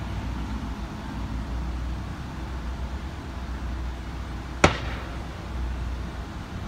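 A police tear-gas launcher firing a gas canister: one sharp bang about two-thirds of the way through, over a steady low rumble.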